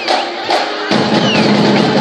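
High school marching band playing: drum strokes, with a held low note coming in about a second in, over crowd noise.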